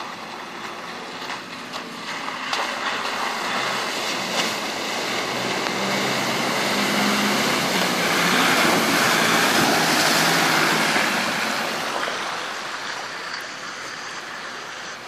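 Nissan Patrol 4WD pushing through a deep, water-filled mud rut: its engine runs under the rush and splash of churned muddy water. It grows louder as the truck passes close by about two thirds of the way in, then fades as it moves off.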